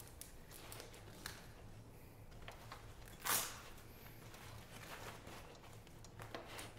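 Quiet handling sounds of a rifle upper being strapped into a padded backpack compartment: soft rustles of fabric and straps, with one short, louder rasp about three seconds in.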